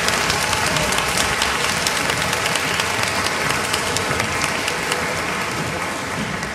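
Audience applauding steadily, a dense clatter of many hands clapping that starts to die down near the end.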